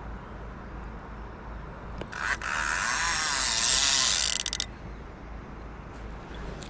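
Salmon fly reel's ratchet check buzzing for about two and a half seconds as the spool spins fast, then slowing into separate clicks as it stops.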